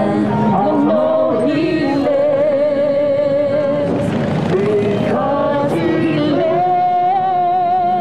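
Music with singing voices holding long, wavering notes, choir-like.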